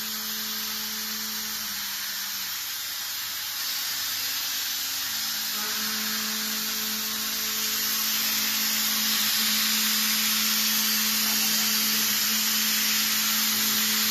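CNC milling machine cutting with an end mill: a steady hiss of coolant spray and machine noise with a steady low hum tone from the spindle and cut. The hum drops out for a few seconds early on and comes back, and the whole sound grows louder about eight seconds in.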